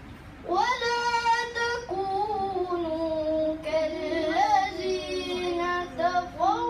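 A child reciting the Quran in melodic tarannum style: long held, ornamented notes with pitch glides, starting about half a second in.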